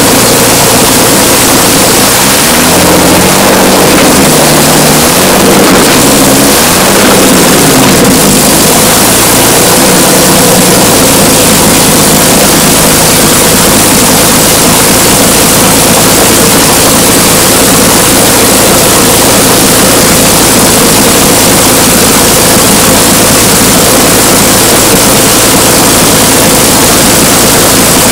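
Merlin V12 aero engine running on a stand through its open stub exhausts, very loud. The revs rise and fall several times over the first ten seconds, then it settles to a steady run.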